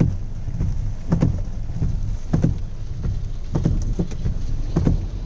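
Inside a car in the rain: a steady low rumble of the engine with rain on the body, and a short regular thump about every 1.2 seconds, the windscreen wipers sweeping.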